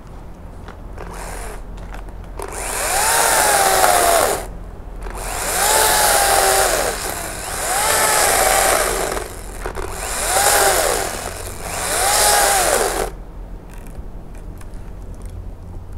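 Makita top-handle battery chainsaw run in five bursts cutting wood, the electric motor's whine rising as it spins up and falling away as the trigger is let off each time.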